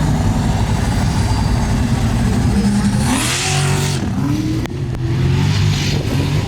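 Formula Offroad race truck's engine revving hard, its pitch rising and falling as the throttle works. There is a burst of hiss about three seconds in and a brief drop in the engine near five seconds.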